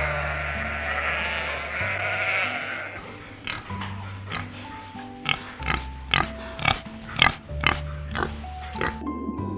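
Animal calls over background music: a wavering call for the first three seconds, then a run of short sharp calls, roughly two a second.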